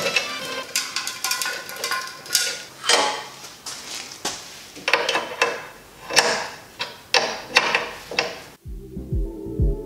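Irregular clicks, knocks and rattles of metal AN hose fittings and braided hose being handled and fitted to a transmission cooler line. About a second before the end it cuts sharply to background music with a thumping bass beat.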